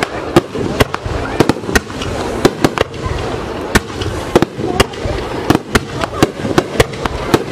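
Starmine fireworks barrage: aerial shells bursting in rapid, irregular succession, sharp bangs about two or three a second over a continuous noisy rumble of the display.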